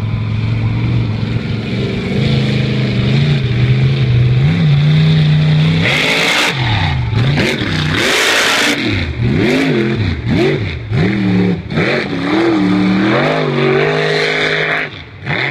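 Mega truck's engine running hard through a mud pit: it holds a steady note for the first few seconds, then revs up and down again and again. Twice there is a rushing burst of mud and water sprayed off the big tyres.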